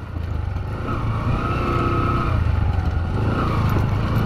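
Motorcycle engine running steadily in low gear as the bike crawls over a rough, slippery dirt track where its wheels are losing grip. The engine builds a little over the first second, then holds.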